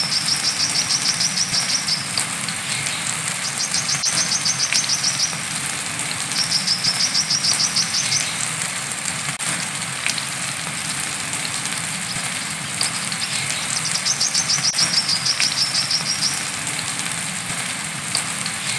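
Brown-throated sunbird (kolibri kelapa) singing high, rapid chattering trills, each about two seconds long, four times with a few seconds between, over the steady hiss of rain.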